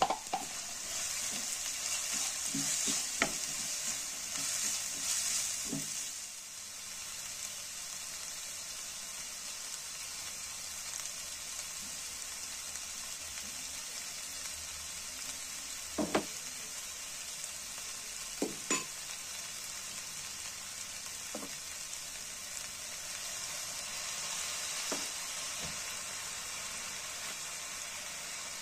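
Crushed green peas sizzling in hot oil in a nonstick frying pan, a steady hiss that is louder for the first six seconds, with a few sharp knocks scattered through.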